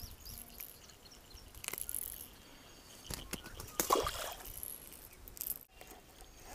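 Faint, scattered clicks and clinks of a fishing lure being handled: the topwater popper's metal hooks knocking together as a small bass is taken off it, with a few soft knocks from hands on the rod and reel.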